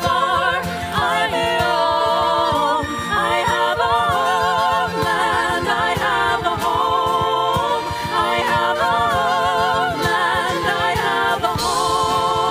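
Live Celtic folk music: several voices singing in harmony with vibrato, with fiddle and acoustic guitar accompanying.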